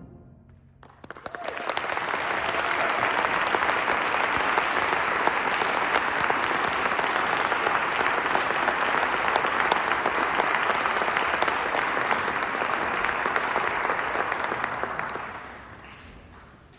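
Audience applauding. The clapping starts about a second in, after a moment of silence, swells quickly, holds steady, then dies away near the end.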